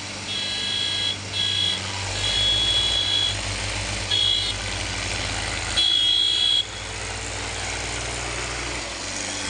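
A vehicle horn honks five times in short and longer blasts, one flat, high multi-note tone each time. Underneath, tractor diesel engines run steadily and grow heavier and more throbbing from about two seconds in.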